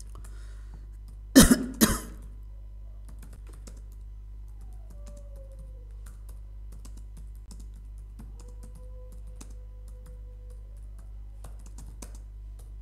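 Two loud coughs about half a second apart, about a second and a half in, then faint scattered clicks over a steady low hum.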